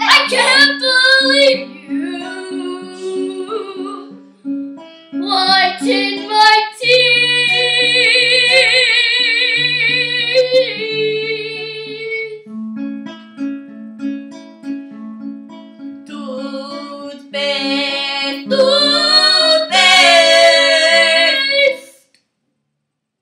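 Acoustic guitar picked note by note under a child's singing voice that holds several long notes with vibrato. The song stops abruptly near the end.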